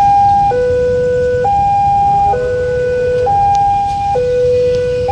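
Railway level-crossing warning siren sounding a loud two-tone hi-lo alarm, switching between a high and a low note about once a second.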